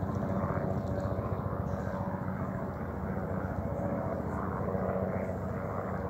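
Steady low engine drone with a fast, even pulsing and a faint humming tone, holding at much the same level throughout.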